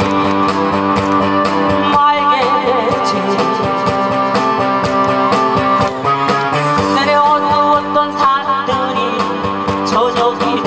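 A woman singing a Korean song into a handheld microphone over a loud instrumental backing with a steady beat, both through the stage PA.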